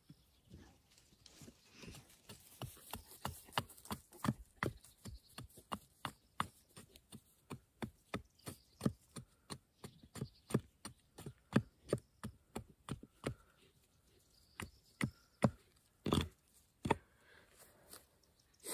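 Hatchet chopping at a wooden stick: a long run of short, sharp wooden knocks, about two to three strokes a second, then after a short pause a few louder, heavier blows near the end.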